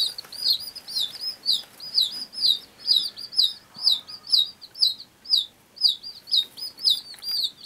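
Day-old bantam chicks peeping nonstop, a run of short high peeps about three a second. The chicks are chilled and shivering, and this is the insistent peeping of cold chicks.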